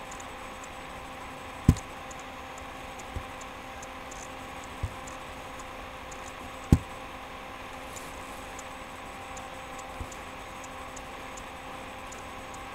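Steady room hum with faint, fairly regular high ticking, broken by a few short dull thumps, two of them loud, at about two and seven seconds in.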